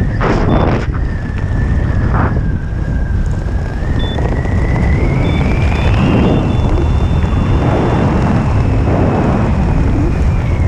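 Wind rushing and buffeting over a helmet camera's microphone during parachute canopy flight and landing approach. Under it runs a thin steady tone that slowly rises in pitch about halfway through, then holds.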